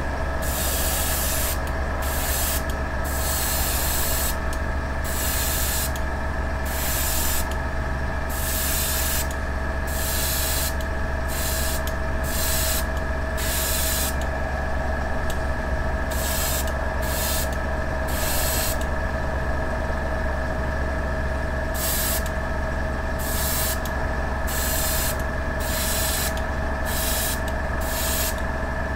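Airbrush spraying silver paint in short hissing bursts, again and again, as the trigger is pulled and released. Under it a steady electric motor hum with a constant whine runs without a break.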